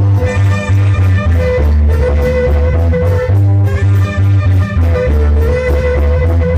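Loud Latin dance music with a strong, steady bass beat and sustained melody notes over it.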